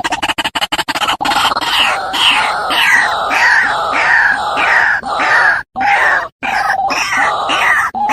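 White-breasted waterhen calls played as a bird lure: a fast stuttering rattle gives way about a second in to repeated croaking notes, about two a second. The notes are cut by two short, sudden gaps of silence.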